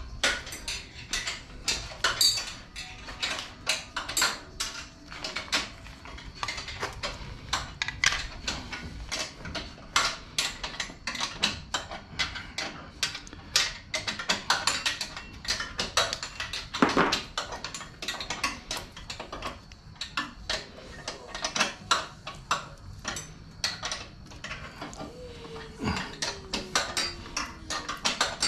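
Hand tools and metal parts clicking and clinking in a rapid, irregular series as bolts are worked loose in a car's engine bay, with a sharper knock about halfway and a short falling squeak near the end.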